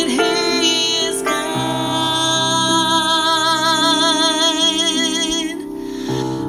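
A woman singing a slow worship song over piano accompaniment, holding one long note with vibrato that ends about five and a half seconds in.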